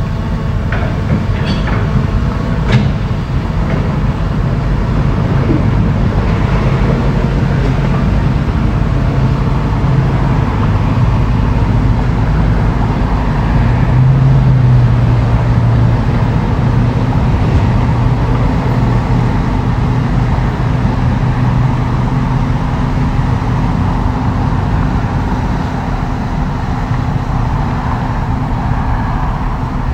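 Heavy diesel earthmoving machinery running steadily under load, growing louder around the middle. A few sharp clanks come in the first three seconds.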